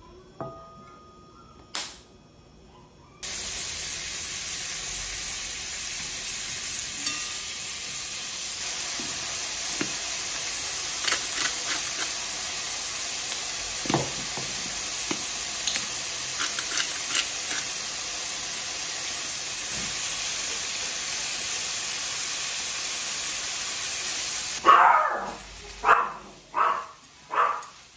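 Sliced pork starts sizzling in a frying pan about three seconds in and fries with a steady hiss, with scattered light clicks and the crackle of a pepper grinder. The sizzle cuts off abruptly near the end, and several short, loud cries follow.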